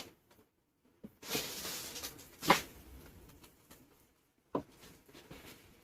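Packaging being handled: a rustle and slide of cardboard and paper about a second in, ending in a sharp knock as something is set down, then another short knock near the end.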